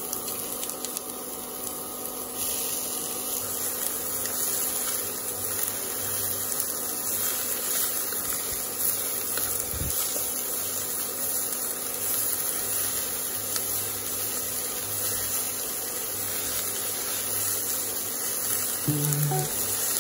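Shredded cabbage, carrot and onion sizzling in hot oil in a nonstick pan as they are stir-fried: a steady hiss. Background music comes in about a second before the end.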